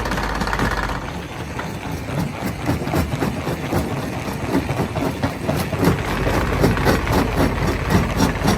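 Stone crusher machine running, with dense, irregular knocking and clatter over a steady engine drone.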